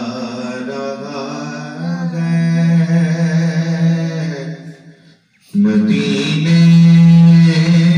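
A man sings a devotional song solo into a microphone, holding long drawn-out notes. He breaks off briefly about five seconds in, then comes back in on another long held note.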